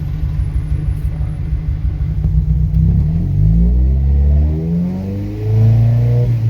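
Mk2 Golf's engine idling, then revved up twice from idle starting about two and a half seconds in, the revs held briefly and dropped between the two blips.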